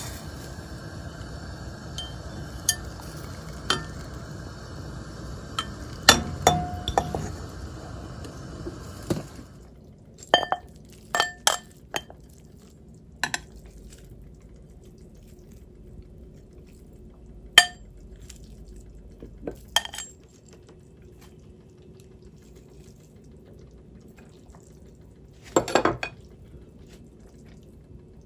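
Wire noodle strainer knocking against a steel pot of hot water over a steady hiss that stops about nine seconds in, while rice noodles are blanched. Then scattered sharp, ringing clinks of utensils and food against a ceramic bowl as it is filled.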